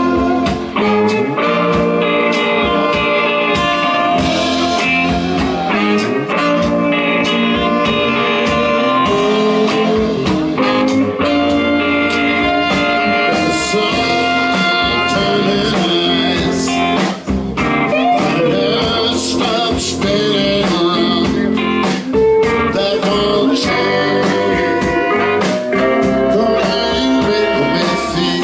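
Live blues band playing a song, with guitar to the fore.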